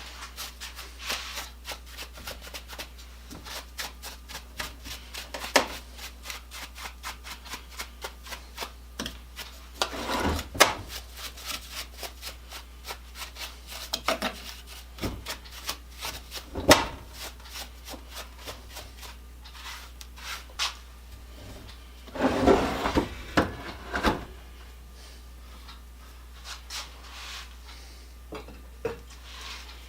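Rapid, repeated scraping strokes, several a second, from hand cleaning, with a few louder knocks. About 22 seconds in there is a short burst of louder clattering.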